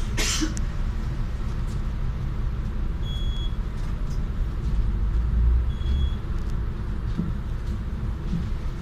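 Solaris city bus engine idling with a steady low rumble, while the card validator by the door beeps twice, about three and six seconds in, as boarding passengers tap their cards. A brief clatter right at the start.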